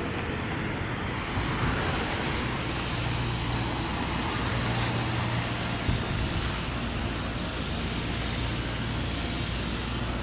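City street traffic: cars driving past with steady road noise and a low engine hum, swelling as a car goes by in the first few seconds.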